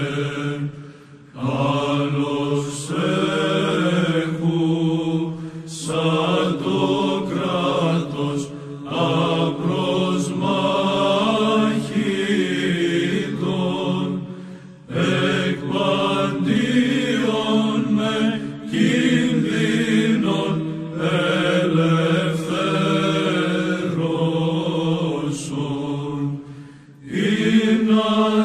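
Byzantine chant sung by voices alone, a slow melody in long phrases with short breaks between them, over a steady held low note.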